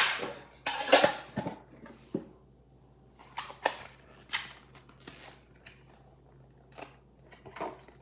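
Handling of a metal Pokémon card tin and its foil booster packs: a sharp clack at the start, then short bursts of crinkling and rustling that come and go.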